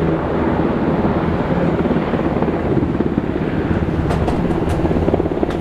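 Navy H-60 Seahawk helicopter hovering low over the sea: a loud, steady, rapid chop of the rotor blades over turbine noise.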